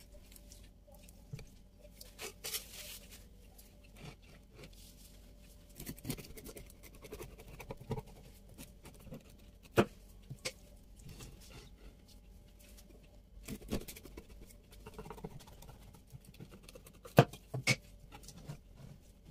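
Kitchen handling noises: irregular light taps, scratches and rustles, with a few sharper knocks about ten seconds in and again near the end.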